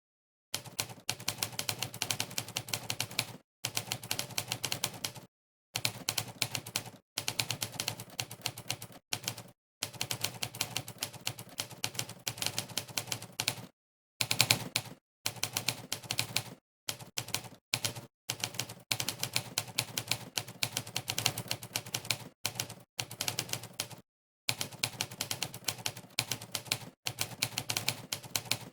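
Monkeytype's typewriter keypress sound effect, one typewriter clack for each key pressed during fast typing: rapid runs of clicks separated by short, dead-silent pauses. It starts about half a second in.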